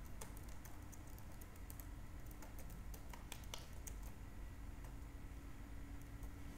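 Typing on a computer keyboard: irregular keystroke clicks, most of them in the first three or four seconds, with only a few after.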